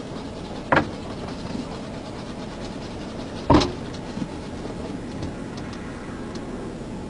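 Steady rumble of a police patrol car's cabin, heard from the rear prisoner compartment, with two sharp knocks about three seconds apart.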